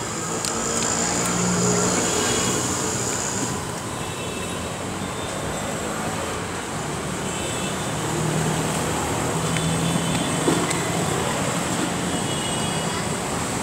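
Street traffic: a steady hum of passing vehicles, swelling twice, for a couple of seconds each time, as something goes by.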